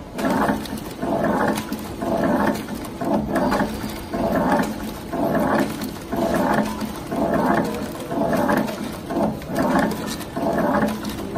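Servo-driven horizontal flow wrapping (pillow packing) machine running, its whirring, growling noise swelling and falling in a steady rhythm about once a second.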